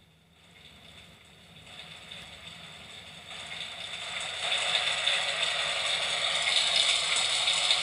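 Rain falling as a steady hiss, growing louder over the first four or five seconds and then holding steady.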